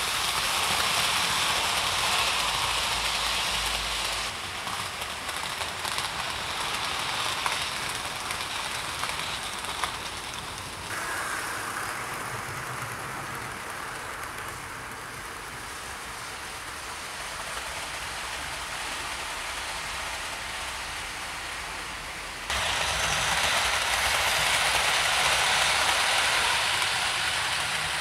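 Hornby OO gauge A4 Pacific model locomotives and their coaches running round the track, a steady rushing, rattling noise of wheels on rail with motor hum. Its level jumps abruptly up or down a few times.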